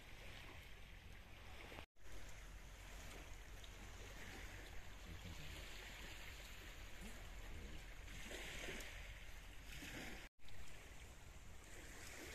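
Quiet seashore ambience: small waves washing on the beach, a soft steady wash with a low rumble underneath. The sound cuts out briefly twice, about two seconds in and near the end.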